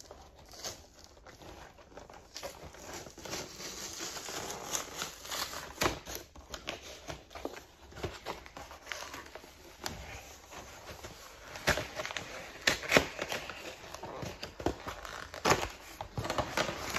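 Packaging of a Pokémon trading-card collection box being opened by hand: plastic wrap crinkling and tearing, with a few sharp clicks and knocks along the way.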